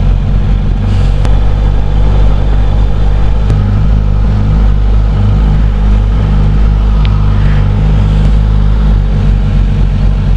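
Suzuki GSX-S1000GT's inline-four engine running steadily at low revs, close to the microphone.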